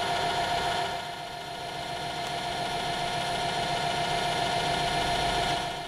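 Metal lathe running steadily: a constant machine hum with one steady tone.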